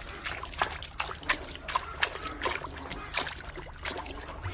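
Water trickling, with many irregular small splashes over a steady low hum.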